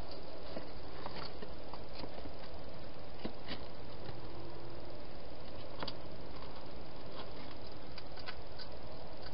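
A hedgehog eating at a plastic feeding station: scattered small crunching clicks over a steady hiss.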